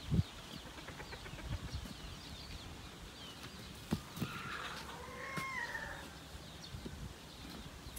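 A rooster crows once, about four seconds in. Faint high chirping runs under it, with a few low knocks, the loudest one near the start.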